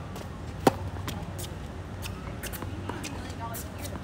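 A tennis racket strikes a ball close by with one sharp pop about two-thirds of a second in. Fainter ball hits and bounces follow from farther across the court, over a steady low hum.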